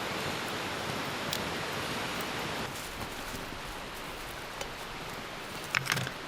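Strong wind rushing steadily through the valley, easing a little about halfway. Near the end come a few sharp clicks, the loudest sounds here.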